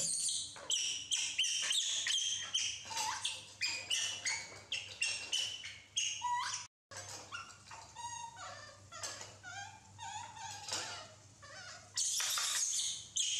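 Baby macaques giving a rapid run of short, high-pitched squeaks and chirps, some sliding up or down in pitch, over a faint steady low hum.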